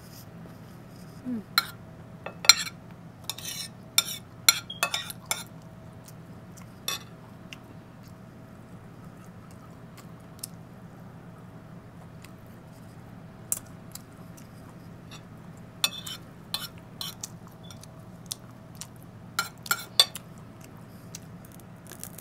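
Metal spoon clinking and scraping against a ceramic plate while eating, in irregular clusters of sharp clinks that are busiest in the first few seconds and again near the end.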